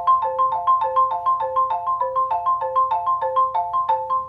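Xylophone played with two mallets: an even, rapid run of struck notes, about seven a second, cycling through a broken F major chord figure.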